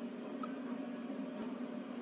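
A dreaming puppy giving one faint, short squeak about half a second in, over a steady low hum; a soft click near the middle.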